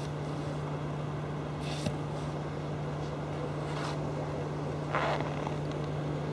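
A hand tool chopping into ice: about three short dull strikes a second or so apart, the loudest about five seconds in, over a steady low hum.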